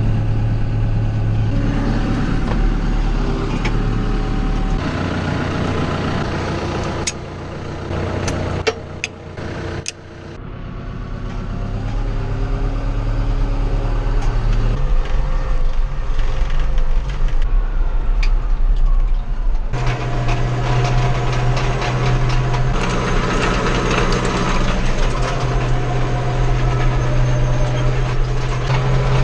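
Farm tractor engine running steadily under load. About eight to ten seconds in it drops away briefly with a few sharp clicks, then comes back and runs on with a steady low hum.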